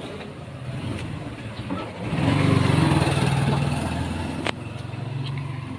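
A motor vehicle's engine running close by, swelling about two seconds in and easing off toward the end, with a sharp click partway through.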